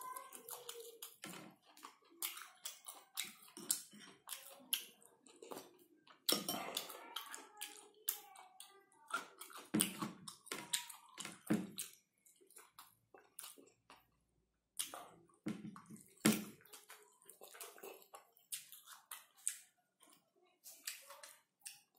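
Eating sounds: wet chewing and smacking of the mouth on boiled pork and rice eaten by hand, heard as a run of irregular short clicks and smacks.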